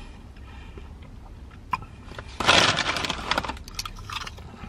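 Foil crisp packet crinkling loudly for about a second as a hand reaches in, then short crunches as a potato crisp is bitten and chewed.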